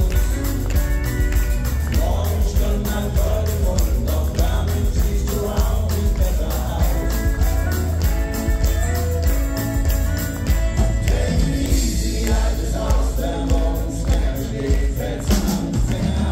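Country band playing live, with electric and acoustic guitars, fiddle and drums keeping a steady beat, and singing.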